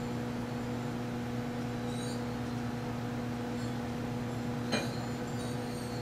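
Microwave oven running with a steady mains hum from its high-voltage transformer, plus a few faint high crackles and one sharp click about three-quarters of the way through.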